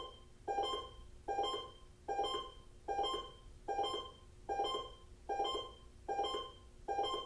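Broadcast emergency-alert chime: a short ringing tone with several overtones, struck about nine times at an even pace of a little more than one a second, each one fading quickly.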